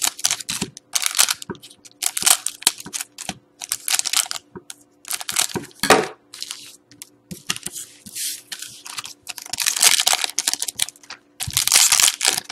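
Foil trading-card pack wrappers crinkling and being snipped open with scissors, in a string of short crackly bursts with brief pauses between them.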